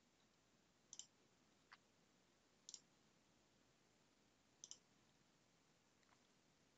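Near silence broken by a few faint computer-mouse clicks, several of them in quick pairs like double-clicks, spaced one to two seconds apart.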